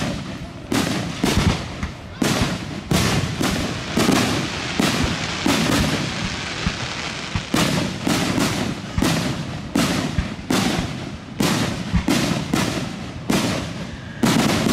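Fireworks display: aerial shells bursting in rapid succession, a sharp bang roughly every second or less, with crackling between the bangs. A short stretch of steady crackling comes about six seconds in.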